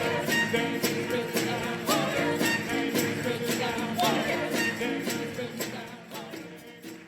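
Music with sustained notes and a steady beat of light percussion, fading down over the last couple of seconds.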